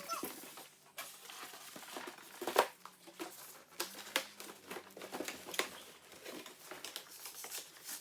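Packaging being handled: cardboard and plastic wrap rustling and crinkling, with irregular small knocks and clicks.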